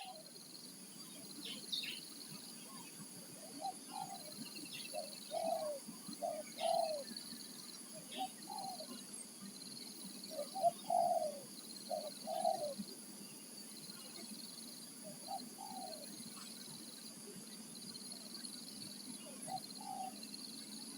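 Spotted doves giving faint, repeated cooing phrases of two or three notes, over a steady high buzz of insects.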